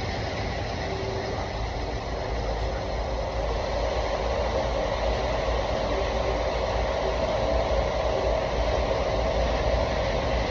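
Combine harvester running steadily while harvesting corn: an even mechanical drone with a few steady tones over it.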